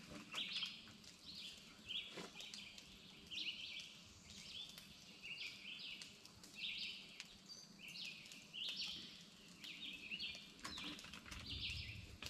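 Wild birds chirping, short calls repeated about once a second, with a few faint clicks close by.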